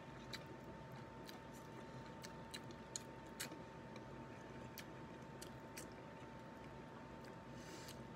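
Faint close-up eating sounds: soft, irregular mouth clicks and smacks of chewing, with a faint steady tone underneath.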